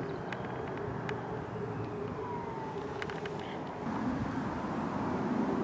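A steady low engine drone with a few faint clicks; about four seconds in it drops lower in pitch and grows louder.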